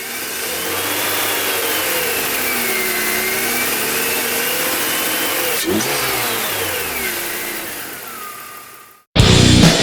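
BMW E46's M54 straight-six engine running with a high whistling whine from the alternator, the whine rising and falling in pitch with engine speed as the revs are varied. The owner suspects the alternator bearing or its diode pack, even though the charging voltage is fine. The engine sound fades out near the end and loud rock music cuts in.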